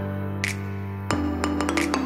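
Background music: held low notes under a few struck, ringing notes, the notes changing about a second in.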